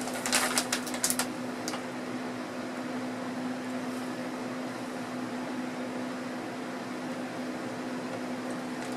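Steady hum of an electric box fan with a constant low tone, and a few sharp crackles within the first second or so as the candy is crunched or its bag handled.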